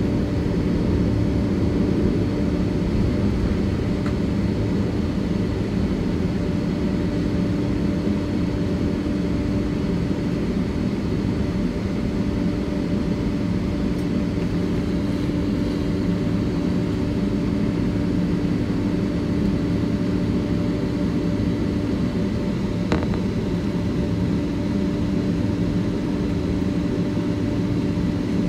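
Steady jet engine roar heard from inside the cabin of a Boeing 767-300ER, with a constant low hum under it.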